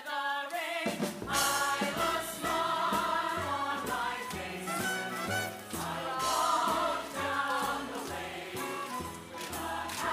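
Musical-theatre ensemble singing a show tune in chorus over orchestral accompaniment, with a bass line moving in steady steps beneath.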